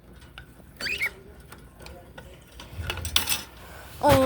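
Small clicks and clatter of a perch stick and cage fittings being handled, with a brief rising squeak about a second in and a louder knock near the end.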